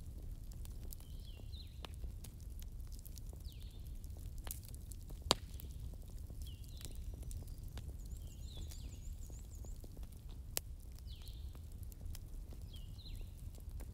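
Wood fire burning with a low steady rumble and scattered small crackles, and two sharp pops, about five seconds in and near eleven seconds. Through it a bird calls repeatedly in short high chirps.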